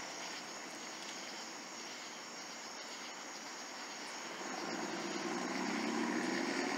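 Steady outdoor night hum with insects chirring; about four and a half seconds in, a low engine hum swells up and holds.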